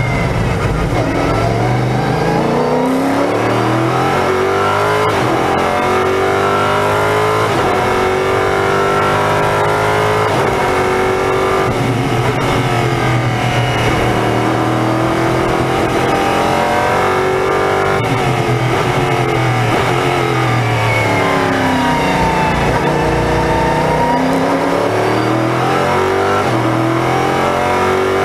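LMP3 prototype's Nissan V8 engine at full racing load, heard from inside the cockpit: its pitch climbs steeply through each gear and drops back at every upshift, and falls away under braking and downshifts before climbing again out of the corners.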